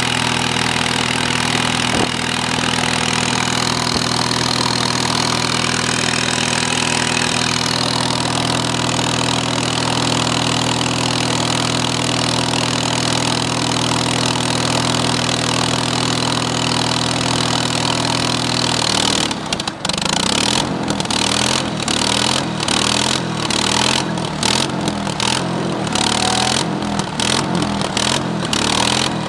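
Wisconsin THD two-cylinder air-cooled gas engine running steadily, driving the conveyor. About two-thirds of the way through, its note turns uneven and pulsing.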